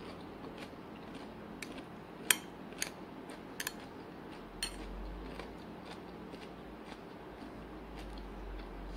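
Chopsticks clicking against a plate and against each other while picking up food: a few scattered sharp clicks, the loudest a little over two seconds in.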